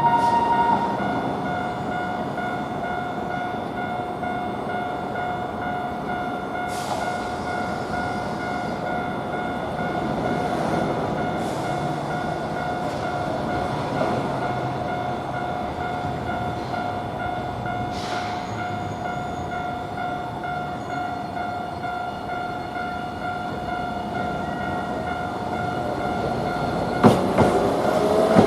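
Japanese level-crossing warning bell ringing on and on with its steady electronic kan-kan tone, while a higher bell tone stops about a second in. Near the end a tram's wheels begin clacking over the crossing.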